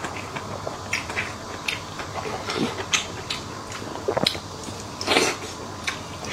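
Close-up mouth sounds of eating stewed beef rib meat: wet chewing and lip smacks at irregular intervals, the loudest and longest about five seconds in.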